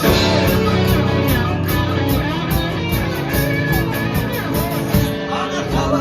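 Live rock band playing a song's opening: guitars strumming over a steady drum beat.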